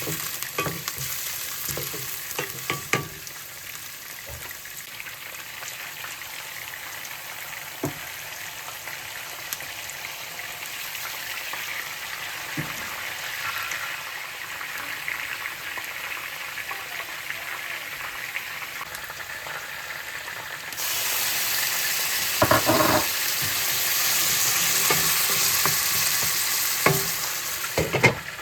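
Food sizzling in a hot frying pan while it is stirred, with scattered clicks and scrapes of the utensil against the pan. About three quarters of the way through the sizzle grows much louder for several seconds.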